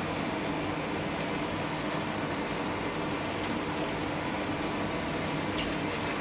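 Crisp-fried bacon crumbled by hand over a baking tin, with a few faint crunches over a steady hum.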